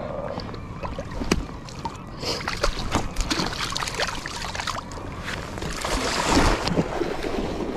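Water splashing and sloshing as a hooked silver salmon thrashes in the shallows, with scattered short clicks and knocks. The noise swells to its loudest about six seconds in.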